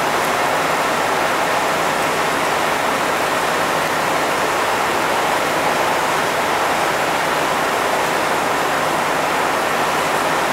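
Heavy rain falling steadily, an even hiss that does not change in level.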